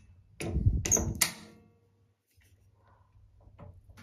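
A few sharp metal clicks and scrapes in the first second and a half, then near quiet: the replacement thermostatic valve cartridge being given a last bit of tightening in the shower mixer body.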